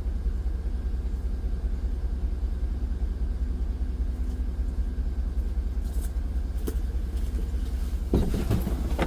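Pickup truck engine running with a steady low rumble, with a few faint clicks about two-thirds through and a louder burst of noise near the end.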